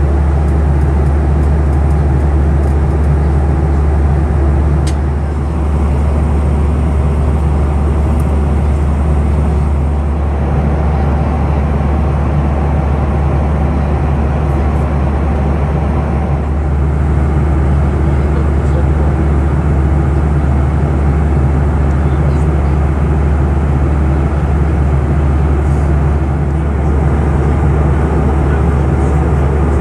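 Steady in-flight cabin noise of a Boeing 737-400: an even roar from its CFM56 engines and the airflow, with a deep steady hum underneath.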